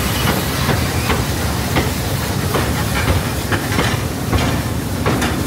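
Class 19D steam locomotive standing with steam hissing loudly and steadily, broken by irregular sharp crackles and pops.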